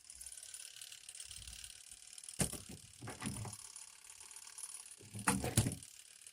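Small portable twin-tub washing machine running its wash cycle: a steady hiss with two bursts of clattering knocks, about three seconds apart.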